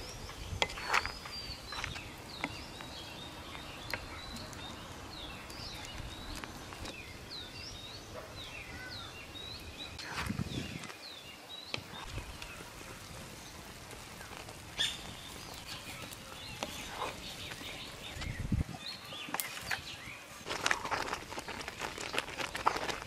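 Birds chirping in a quick series of short calls, over occasional knocks and scrapes of a wooden spoon against a metal cooking pot. Near the end comes a denser stretch of stirring noise as boiling strawberry jam is stirred hard.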